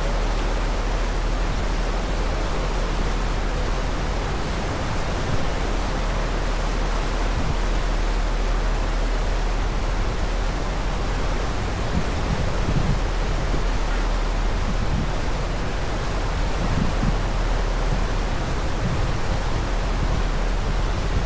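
Steady rushing noise of a ferry under way: the churning wake behind the stern and wind across the microphone, over a low steady drone. Wind gusts buffet the microphone now and then in the second half.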